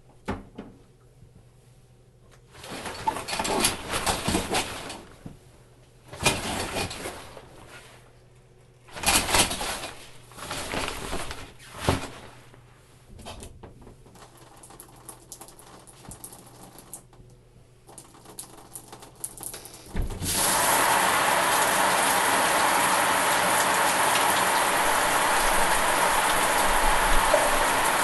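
A shower curtain is pulled and rustled along its rod in several short bursts, with fainter rustling after. About 20 seconds in, the shower is turned on, and a steady spray of water follows.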